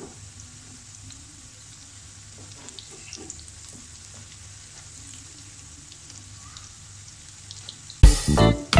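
Noodle pakoras frying in hot oil in a pan: a quiet, steady sizzle with a few light clicks as a spatula turns them over. Loud music comes in suddenly near the end.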